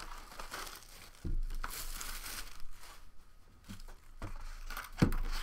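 Crinkling and rustling of a cardboard outer box and its packaging as it is handled and lifted off a card-box briefcase, with a thump near the end.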